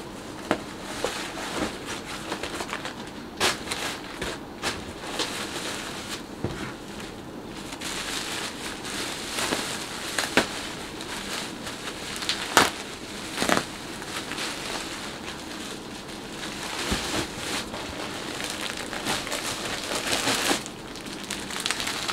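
Plastic packaging crinkling and rustling as items are lifted out of a cardboard box, with scattered sharp crackles and knocks.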